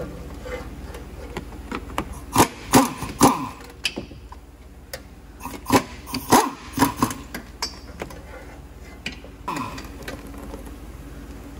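A screwdriver tapping and scraping against the underside of a car, giving sharp clicks and knocks in two clusters and a few single ones later, over a steady low hum.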